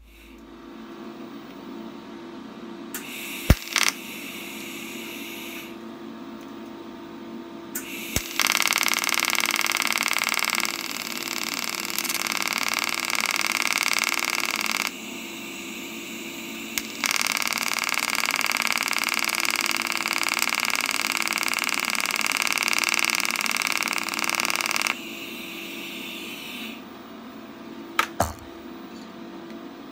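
TIG welding torch arc hissing steadily on steel, in two long runs of several seconds with a short break between them, over a steady low hum. A few sharp clicks come at the arc starts and stops.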